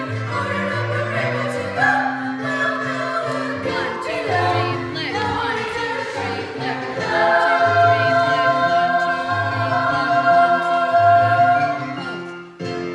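A song sung by a group of voices, ending on a long held final note that fades out near the end.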